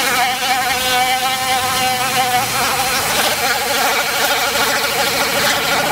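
Dremel 4000 rotary tool with a sanding drum running at speed, a steady whine that wavers slightly in pitch as the drum grinds the cut edge of a plastic bumper cover smooth.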